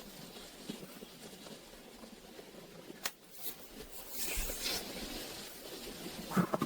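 Quiet handling noises: a sharp click about three seconds in, a rustle about four seconds in, and a couple of light knocks near the end.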